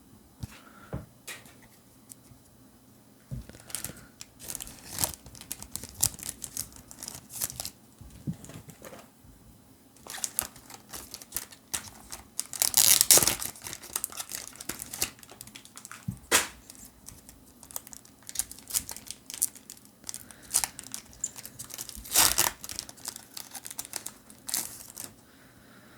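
Foil booster-pack wrapper crinkling and tearing, with many short rustles and snaps of cards being handled; two louder, longer rips, about halfway and near the end.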